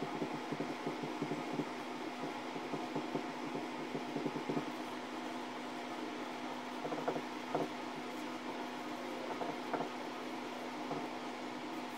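Marker pen writing on a board: quick short strokes, packed closely for the first few seconds and then scattered, over a steady low hum.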